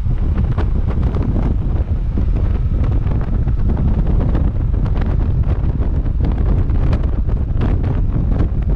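Heavy wind buffeting the microphone over a steady low road rumble, with many short knocks and crackles; no horn sounds.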